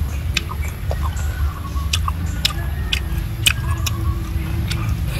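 A person chewing a mouthful of food with moist lip-smacking clicks every half second or so, over a steady low rumble.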